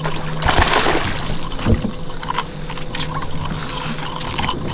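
Water splashing and sloshing as a hooked striped bass thrashes at the surface, in irregular surges with scattered clicks, over a faint steady hum.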